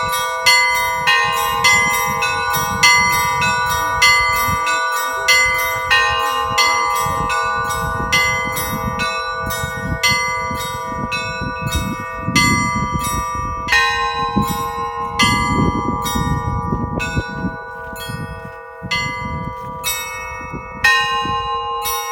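Russian Orthodox church bells rung by hand by a bell-ringer: rapid strokes on several small bells ring over the sustained tones of larger ones. The strokes come several a second at first, then thin out and space further apart in the second half.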